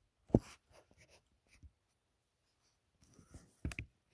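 Close handling noises: a sharp tap about a third of a second in, light scratching and small ticks, then a quick pair of knocks near the end.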